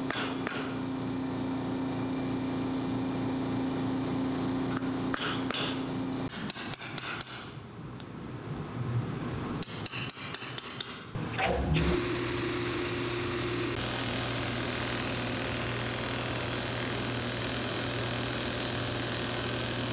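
A steady machine hum, then a run of sharp hammer strikes driving nails through a punch into a new rubber boot heel about ten seconds in. From about twelve seconds a boot finishing machine's motor runs steadily as its sanding wheel dresses the sole edge.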